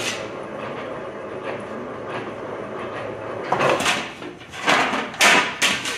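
Three-roll plate roll running with a steady rumble as a 1/16-inch steel sheet passes through it. From about three and a half seconds in, the thin sheet gives several loud, short, noisy bursts as it flexes and scrapes while curling out of the rolls.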